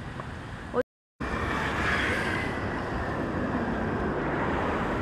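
Road traffic on a wide city street: the steady noise of passing cars. It starts after a brief cut to silence about a second in and is louder than the quieter outdoor ambience before the cut.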